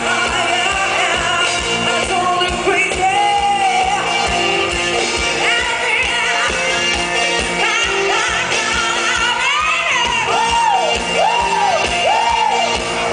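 Live band music through a PA: women singing into microphones over a quick, steady beat. Shouts come over the music now and then.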